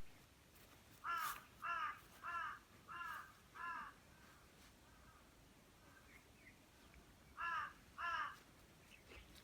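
A crow cawing faintly: a run of five harsh caws about half a second apart, then a pause, then two more caws near the end.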